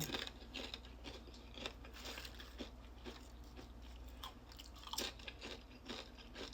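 Close-up chewing and crunching of crispy fried chicken: irregular crackles of the fried crust between the teeth, a sharper crunch at the start and another about five seconds in.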